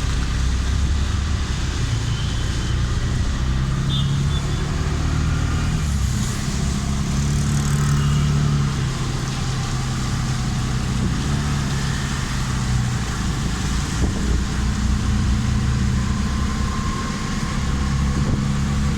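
Motor vehicle engines running in road traffic: a steady low hum that shifts in pitch every few seconds, over a constant wash of road noise.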